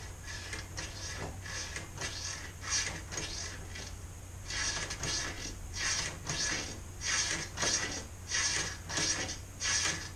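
Throttle cable and carburettor bell-crank linkage of an Austin Healey 100/4 being worked back and forth from the pedal: repeated short mechanical rasps and clicks, sparse at first, then about two a second from halfway on.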